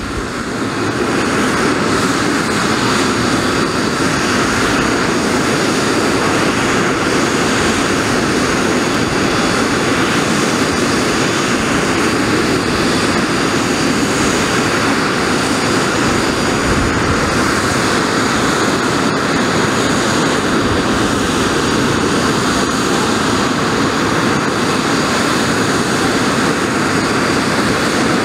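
Soko G-2 Galeb's Rolls-Royce Viper turbojet running steadily on the ground: a loud, even jet roar with a faint high turbine whine.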